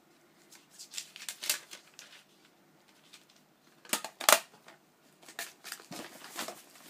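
Gift wrapping being handled and torn open by hand: irregular crinkling and short rips, loudest in a quick burst about four seconds in. The items are wrapped tightly and hard to get into.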